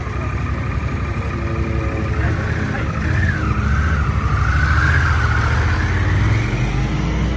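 Harley-Davidson Pan America's Revolution Max 1250 V-twin running, then revving up as the bike pulls away and accelerates past, its pitch rising and falling with the throttle. The engine grows louder from about two seconds in and eases off slightly near the end.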